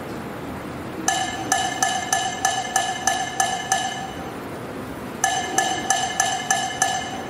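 A small bell rung in quick strokes, about three a second, with a bright ringing that carries between strokes. It comes in two runs: about nine strokes starting about a second in, then about six more near the end.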